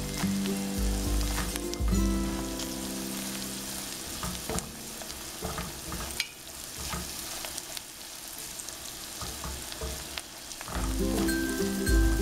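Chopped onions and green chillies sizzling in hot oil in a deep nonstick pan, stirred with a silicone spatula that scrapes and taps the pan now and then. Background music plays under it for the first two seconds and comes back near the end.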